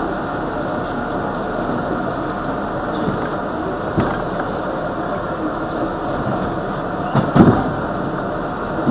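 R62A subway car running along the track, heard from inside the car as a steady rumble of wheels on rail. A single sharp knock comes about four seconds in, and a burst of loud knocks about seven seconds in.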